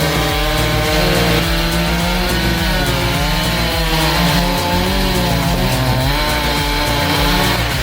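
Two-stroke chainsaw running at full throttle and cutting wood, its engine pitch dipping and recovering as it loads in the cut, with background music underneath.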